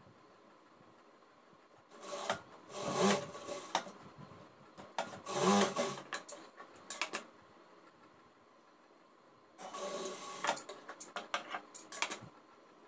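Cotton blouse fabric rustling as it is folded and handled on a sewing table, in two irregular spells: about two to seven seconds in and again about ten to twelve seconds in, each ending in a few sharp bits.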